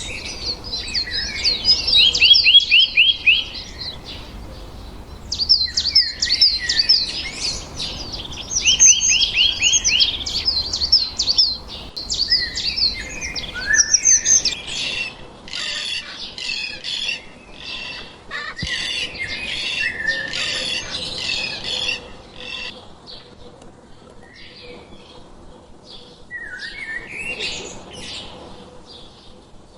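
Small birds chirping, many short high calls overlapping, with quick trilled runs of notes now and then; the chirping thins to a few scattered calls near the end.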